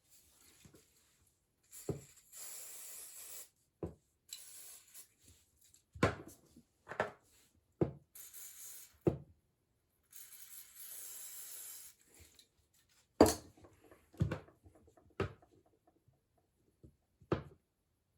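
Parts of a drum washing machine's friction damper being handled and fitted: several short sliding rubs alternating with about ten sharp knocks and clicks, the loudest about thirteen seconds in.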